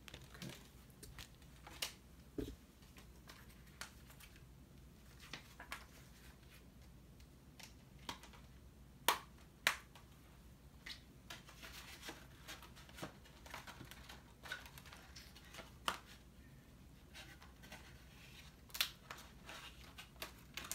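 Plastic Blu-ray case and its packaging being handled: scattered light clicks and rustling, with a few sharper clicks, two of them close together about nine seconds in.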